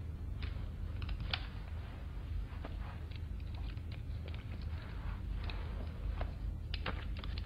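Low steady room hum with scattered small clicks and rustles of a man handling his glasses and a pencil at a table.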